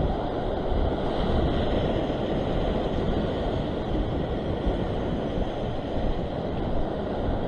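Surf breaking and washing against a rocky shore, with wind buffeting the microphone: a steady rush of noise with no distinct events.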